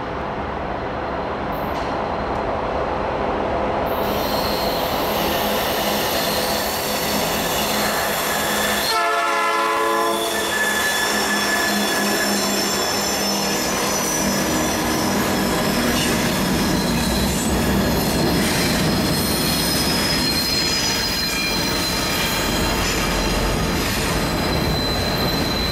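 A freight train hauled by diesel locomotives approaches and passes close by, its engines and wheels growing louder. About nine seconds in, a locomotive horn sounds once for roughly a second and a half. After that the cars roll past with high-pitched wheel squeal.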